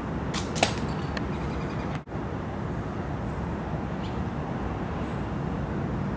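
A flying disc hits a metal disc golf basket: one sharp, ringing clank about half a second in, over a steady outdoor rumble. The sound drops out for an instant about two seconds in.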